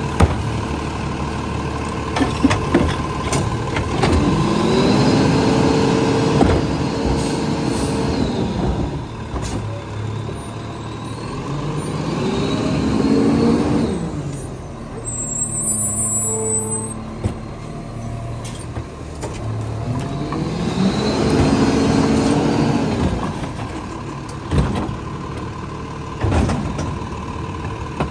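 Lodal EVO garbage truck's engine idling, then revving up, holding and dropping back to idle three times, the throttle-up that runs the hydraulics as the loaded hopper cycles. A few sharp knocks near the start and near the end from trash carts banging against the hopper.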